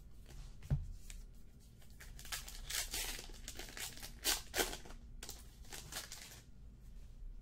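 Trading-card pack wrapper being crinkled and torn open, a run of papery swishes and crackles over several seconds, after a soft knock of cards set down on the desk a little under a second in.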